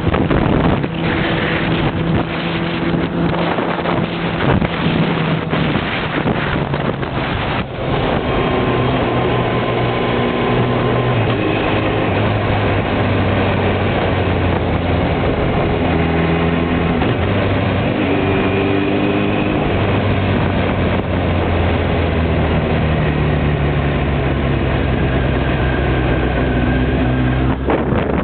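Motorcycle engine running on the road, its pitch stepping up and down several times with throttle and gear changes. Wind buffets the microphone for roughly the first eight seconds.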